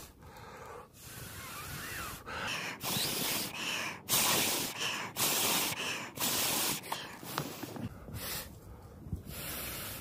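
A person blowing hard into a bundle of dry grass tinder to coax a friction-fire ember into flame, in a run of long breaths about one a second. The dry grass rustles in gloved hands.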